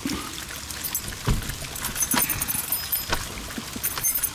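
A key ring jangling while a key is worked in a new deadbolt's lock cylinder, with about four sharp clicks roughly a second apart as the lock turns.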